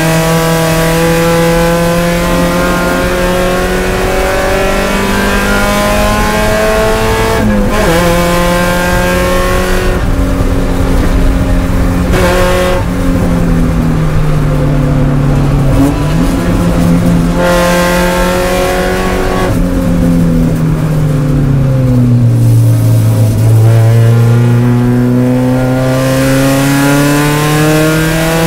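Spec Miata (Mazda MX-5) race car engine heard from inside the cockpit, running hard under load. Its pitch climbs, dips briefly about eight seconds in, sinks from about twenty seconds in as the car slows, then climbs again in the last few seconds as it accelerates.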